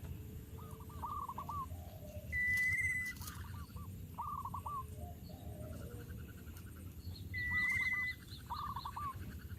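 Birds calling: clusters of three or four quick falling chirps repeated every second or so, with a louder steady whistle twice, about two and a half seconds in and again near the end, and a faint rapid trill in the second half.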